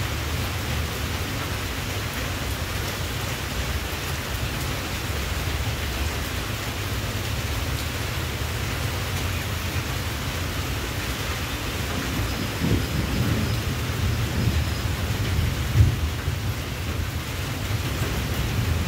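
Steady rain with a continuous low rumble, and a few louder low thumps in the last few seconds.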